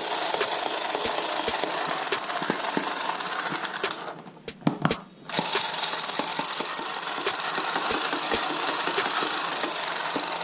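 Battery-powered toy assault rifle playing its electronic machine-gun sound effect, a rapid continuous rattle. It stops for about a second about four seconds in, then starts again.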